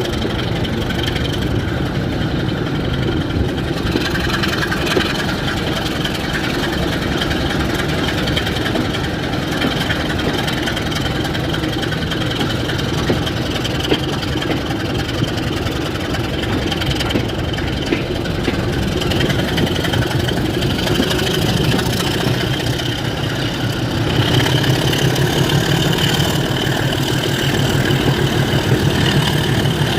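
Class 27 diesel locomotive's Sulzer six-cylinder engine running steadily, getting louder about two-thirds of the way through.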